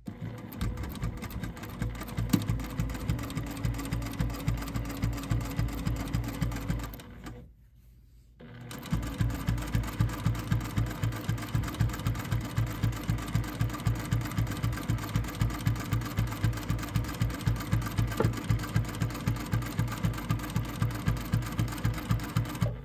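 Juki TL18 QVP straight-stitch sewing machine running at a steady, rapid stitch, sewing bias binding through both layers of a quilted piece via a double-fold bias binder attachment. It stops about seven seconds in for a second and a half, then starts again and runs on.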